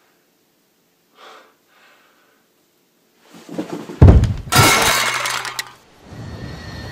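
After a few seconds of near silence, a sudden loud crash with a smashing, breaking quality hits about four seconds in and dies away within two seconds. A steady hum follows.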